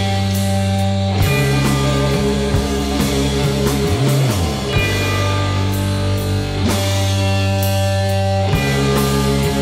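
Rock music with heavy guitar and steady bass tones, with a brief pitch slide about four seconds in.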